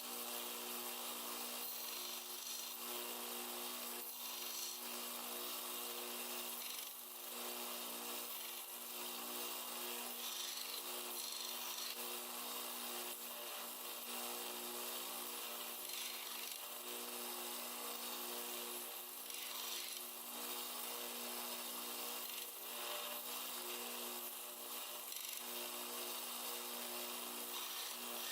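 Power sander running steadily with a motor hum while armadillo-shell knife handles are sanded on it, a continuous scratchy rubbing of hard shell against the abrasive.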